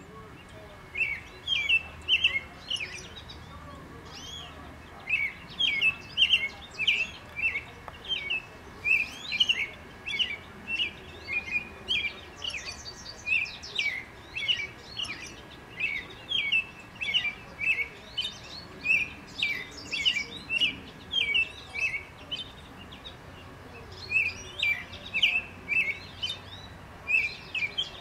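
American robin singing its caroling song: short whistled phrases of a few notes each, delivered in runs of several seconds with brief pauses between them.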